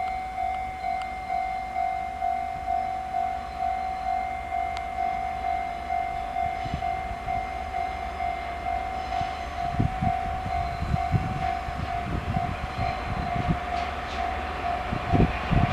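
Japanese level-crossing alarm ringing, a steady electronic bell tone pulsing a little under twice a second. From about ten seconds in, a train's wheels knock over the rail joints as it comes through the crossing.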